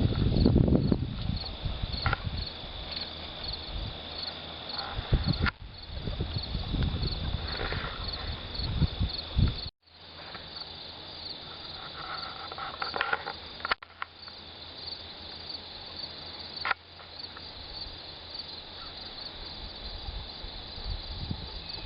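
Insects chirping in a steady, even pulse, with wind or handling rumble on the microphone during the first half. The sound cuts off abruptly several times.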